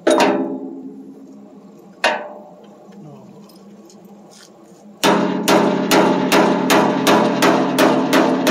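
Hammer striking metal: two single blows about two seconds apart, each ringing out for about a second, then from about five seconds in a fast, steady run of blows, about three a second, with the metal ringing between them.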